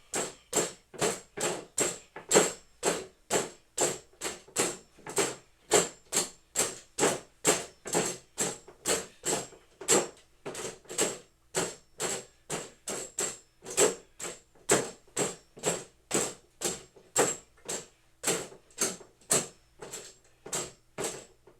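A punching bag being hit again and again in a steady rhythm, about two to three punches a second, without a break.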